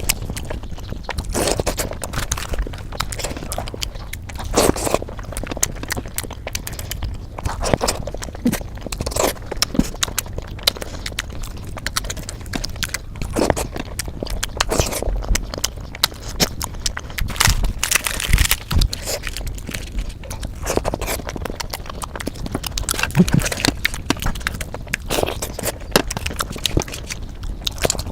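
Close-miked chewing and wet mouth sounds of a person eating puri with spicy potato curry, an irregular run of short clicks and crackles.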